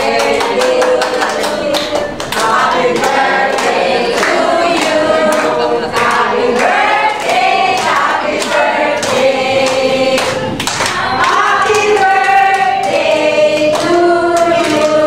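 Music with several voices singing together over a regular beat.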